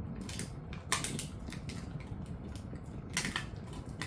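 A dog gnawing a rib bone: irregular crunches and clicks of teeth on bone, loudest about a second in and again just after three seconds.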